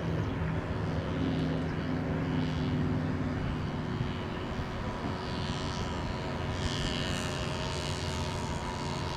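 Radio-controlled racing boats' motors running on the course: a continuous hum that shifts a little in pitch.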